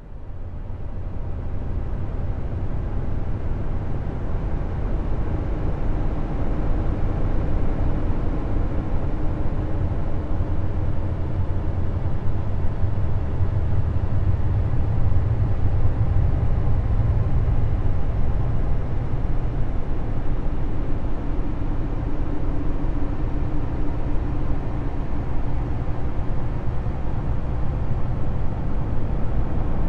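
Steady low rumbling noise with a faint hum riding on it, fading in over the first couple of seconds and swelling slightly toward the middle: a space-ambience track presented as the sound of one of Jupiter's Galilean moons.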